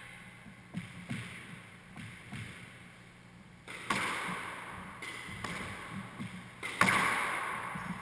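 Squash rally: the ball struck by rackets and smacking off the court walls, each hit echoing around the court, with footfalls on the wooden floor between. The loudest hits come about four and seven seconds in.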